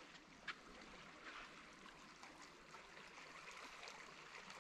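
Near silence: faint outdoor ambience, a soft even hiss with a few faint ticks, one a little stronger about half a second in.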